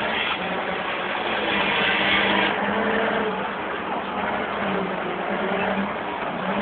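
Wheel loader's diesel engine working under load as its log grapple pushes a large log onto a logging truck, strongest in the first couple of seconds and easing off after about two and a half seconds.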